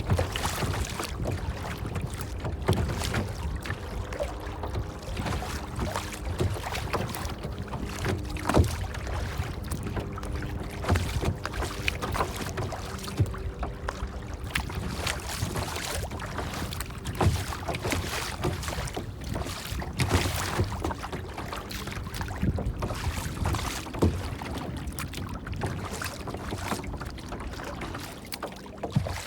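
Water splashing and lapping in irregular sharp strokes over a steady rushing noise.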